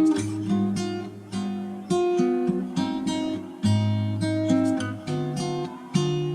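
Background music: acoustic guitar plucking and strumming chords, each note fading away after it is struck.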